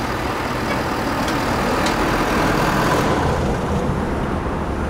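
Lifted Ford Super Duty pickup truck pulling in and running, a steady low engine sound with a higher rushing noise that eases off about three seconds in.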